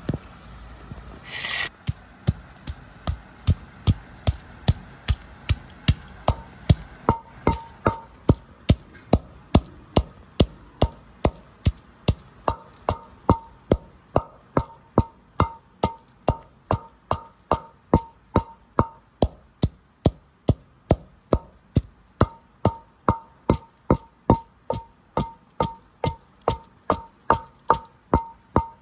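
Neem-wood pestle pounding garlic and chillies in an unglazed clay pot, a steady rhythm of about two strikes a second, each with a short ring from the pot. A short scraping burst comes just before the pounding starts.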